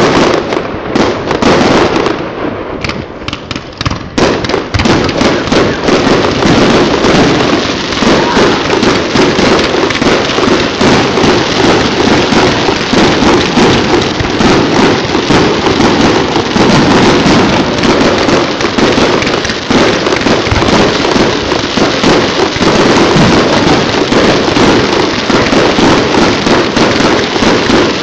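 Fireworks going off in a loud, rapid barrage of bangs and crackling. Separate bangs in the first few seconds run together into a continuous volley about four seconds in.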